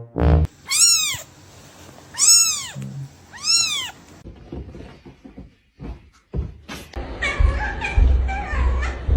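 A cat meowing three times, about a second apart, each high call rising and then falling in pitch. A louder, noisier jumble of sounds follows near the end.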